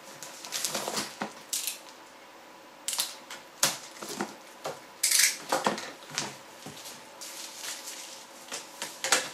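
Cardboard box being cut open with a box cutter and handled: irregular clicks, knocks and short scraping, slicing swishes as the seals are cut and the box is turned over and its lid worked loose.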